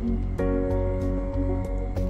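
Background music: sustained chords over a steady low beat, with a new chord coming in about half a second in.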